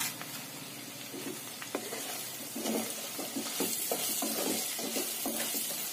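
Potato cubes and ground spices sizzling in hot mustard oil in a kadhai; from about halfway a wooden spatula stirs them through, and the sizzle grows louder as the spices are fried.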